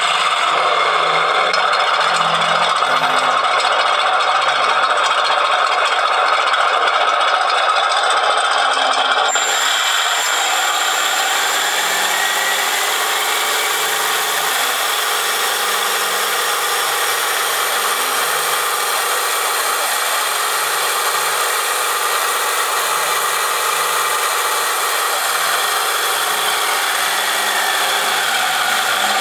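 RC Tiger I model tank's sound board playing a steady tank-engine sound through its small speaker, mixed with the rattle of the model's gear motors and tracks. About nine seconds in the sound turns brighter and hissier and stays so.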